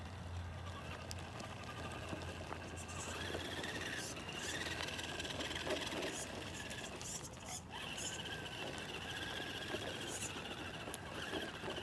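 Remo Hobby 1/10 scale RC rock crawler's electric motor and gears whining as it crawls along, the pitch rising and falling with the throttle, with a few clicks and knocks from the chassis over the ground.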